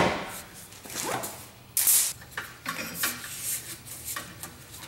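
Cable cutters snipping through the parking brake cables: a sharp snap at the start and another about two seconds in, with small clicks and rattles between.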